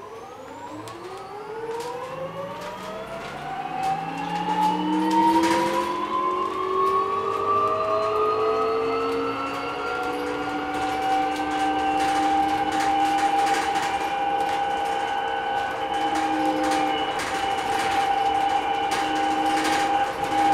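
BYD K9M electric bus's electric drive whining as the bus accelerates, heard inside the cabin: several tones rise in pitch together over about eight seconds, then hold steady as the bus cruises. Scattered clicks and rattles sound over it.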